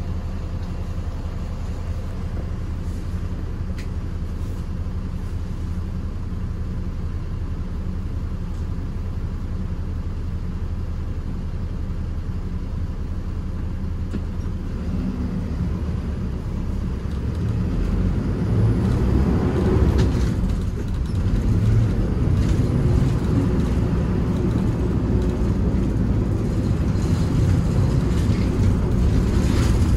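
Minibus engine idling with a steady low hum, then getting louder about halfway through as the bus moves off and runs on.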